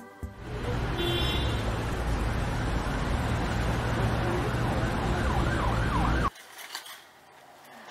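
City street traffic noise with a steady low rumble, and a siren wailing briefly near the end. It cuts off suddenly after about six seconds, giving way to a much quieter room.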